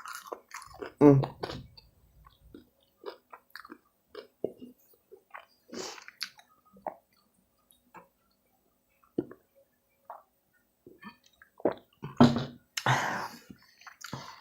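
A person chewing food close to the microphone, with short, irregular wet mouth smacks and bites throughout. The mouth sounds are loudest near the end.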